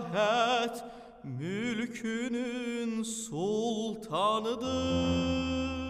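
Male classical singer singing a slow Azerbaijani art song in full operatic voice with wide vibrato. Near the end he holds a long note over a sustained piano chord.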